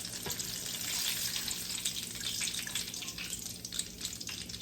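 Battered chicken bites deep-frying in hot vegetable oil: a steady crackling sizzle made of many small, fast pops.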